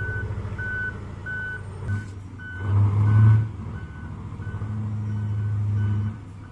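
Reversing alarm on a Komatsu mining haul truck beeping steadily, about one and a half beeps a second. Underneath, the big diesel engine drones and swells louder twice, around three seconds in and again near the end.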